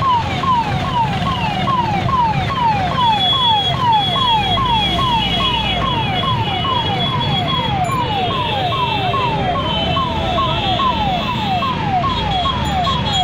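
Ambulance siren sounding a fast, repeating falling wail, about two sweeps a second. A steady low rumble of traffic runs beneath it.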